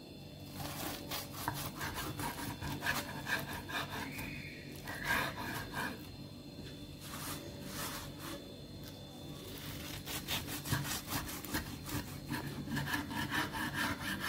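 Kitchen knife sawing back and forth through a toasted lavash omelette wrap onto a wooden cutting board, with short rasping strokes. The strokes come in two runs with a quieter spell between them.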